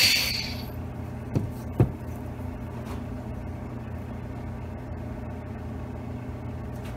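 Valve seat grinder's stone whirring briefly on the valve seat, with a high ringing that dies away within the first second. Two knocks follow, the grinder driver set down on the wooden bench, over a steady low hum.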